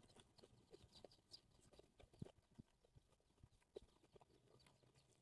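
Near silence, with a few faint clicks from someone chewing a mouthful of food, the loudest about two seconds in.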